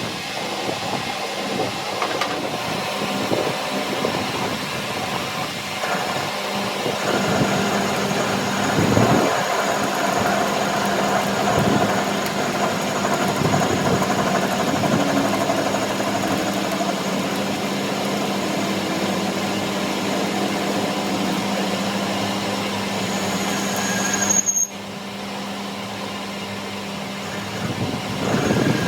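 A machine running steadily with a constant hum, changing abruptly about three-quarters of the way through.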